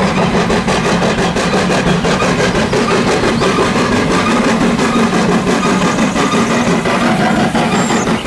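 Full-size Thomas the Tank Engine steam locomotive working along the track, a loud, steady rush of noise with a quick, even beat.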